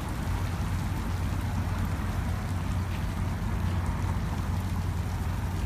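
Water sprinklers spraying with a steady hiss, over a steady low rumble.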